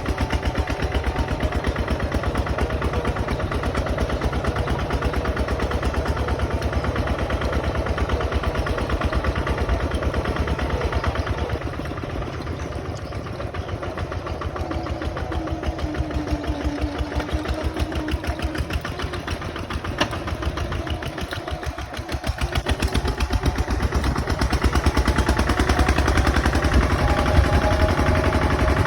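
Bulldozer's diesel engine running with a rapid, even chugging. It eases off somewhat about midway and is worked harder again near the end.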